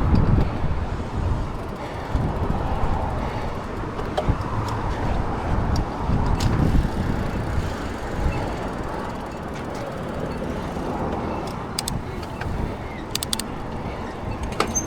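Steady road traffic noise from passing cars, with a few short clicks and low knocks.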